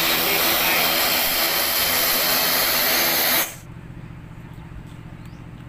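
Twin-engine turboprop airliner's engines and propellers running as it taxis: a loud, steady hiss with a high whine and a low hum. It cuts off abruptly about three and a half seconds in, leaving only faint outdoor background.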